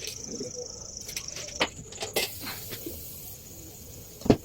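Scattered knocks and clicks of MDF drawer parts being handled and fitted together, with one loud knock near the end, over a steady high-pitched chirring.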